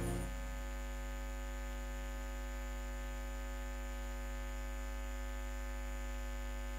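Steady electrical mains hum from the live-music sound system, a low buzz with many even overtones. The last notes of the music die away within the first half second.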